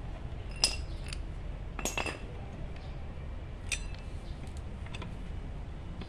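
Metal clinks of hand tools and brake parts being handled at a motorcycle's front disc brake caliper while new brake pads are fitted. There are a few sharp clinks with a short ring: the loudest comes about two-thirds of a second in, a cluster follows around two seconds in, and another comes near four seconds.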